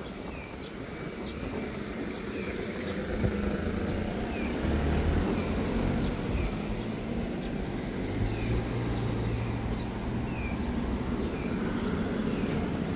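Road traffic: a vehicle engine's low rumble builds over the first few seconds and stays, with a steady engine hum from about eight seconds in. Short high chirps repeat roughly once a second.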